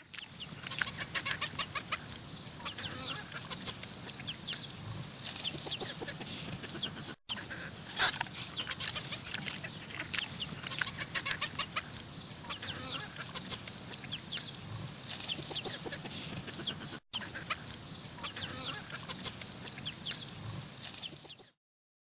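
Chickens clucking and chattering: a dense run of short, quick calls, briefly cut off twice, about seven and seventeen seconds in.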